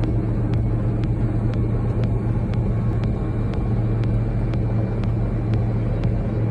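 A large engine running steadily with a low hum, with a faint, even tick about twice a second.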